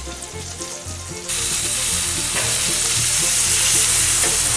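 Bacon sizzling in sunflower oil on a hot stainless-steel plancha over a gas grill: a steady frying hiss that suddenly jumps louder about a second in.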